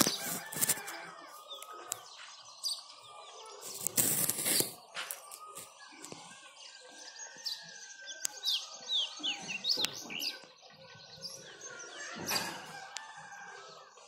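Birds chirping, with many short, quick falling notes, and a brief rush of noise about four seconds in.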